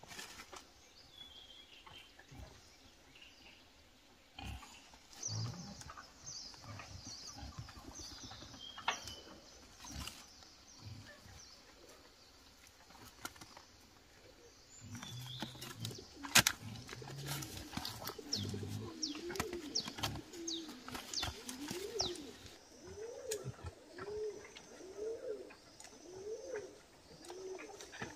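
Tomatoes being handled and dropped into a bamboo basket: soft rustling and light knocks, with high bird chirps. In the second half a bird calls over and over, a short rising-and-falling note about once a second.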